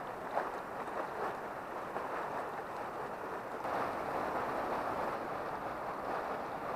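Shallow river running over a stony bed: a steady rushing of water that gets louder about three and a half seconds in.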